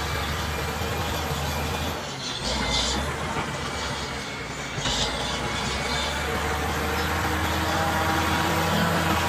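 Caterpillar D7G bulldozer's diesel engine running under load, easing off briefly twice and picking up again, with two short hisses about two and a half and five seconds in.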